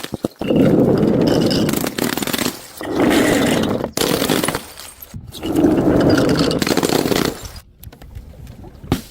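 Three long rough crunching or scraping sounds, each lasting a second or two with short pauses between, from something being crushed or rubbed.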